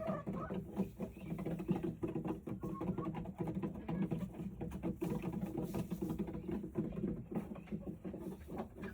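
Rustling and light scratching in a chicken nest box's bedding, a rapid run of small clicks and taps as eggs are searched for among the nesting material.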